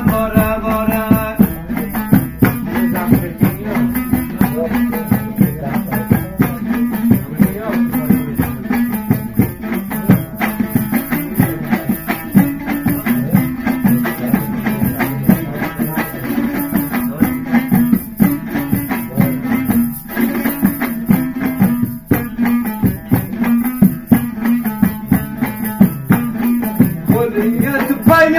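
Dambura, the Afghan two-stringed long-necked lute, strummed fast in a steady, driving rhythm over a constant low drone note: a solo instrumental folk passage.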